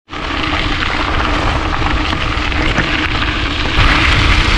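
Wind buffeting the microphone of a bike-mounted camera, over gravel-bike tyres rolling on a dirt and gravel road. It is a steady loud rush with deep rumble, getting a little louder about four seconds in.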